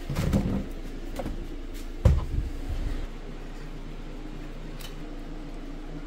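Plastic storage cabinet doors being opened with a rattle, then shut with a sharp thump about two seconds in, over a steady low hum.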